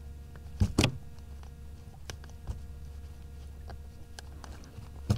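Two sharp knocks about a quarter second apart, under a second in, then scattered light clicks and taps, from handling a fish on a kayak while spiking it, over a steady low hum.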